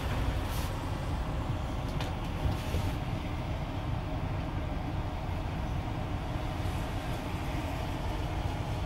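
Wright-bodied DAF double-decker bus's diesel engine running steadily, a low rumble heard from inside the driver's cab, with a faint click or two about two seconds in.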